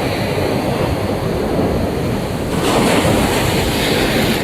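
Rough sea surf running steadily, with a louder wave breaking a little past halfway.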